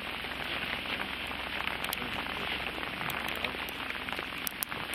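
Hail and rain falling steadily on an open fishing boat, an even hiss with scattered sharp ticks of pellets striking.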